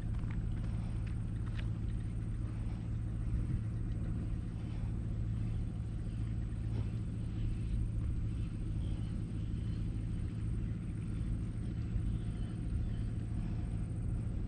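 A steady low hum or rumble, like a motor running without change, under faint hiss.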